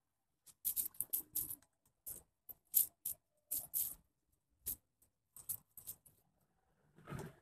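A series of short scrapes and light taps from a plastic putty scraper being handled and worked in wall putty. A longer, louder rough scraping starts near the end.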